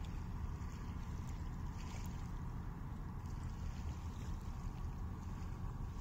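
Steady low outdoor rumble with a faint hiss, with no distinct event: ambience beside a calm sea.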